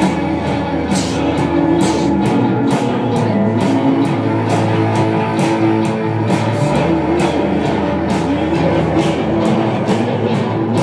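Loud rock music with guitar and drums keeping a steady beat, and a deep bass note that drops out twice.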